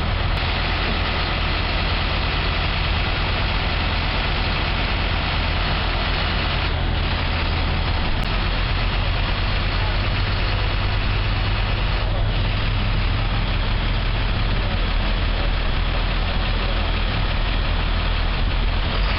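Heavy truck engine idling steadily, a constant low hum.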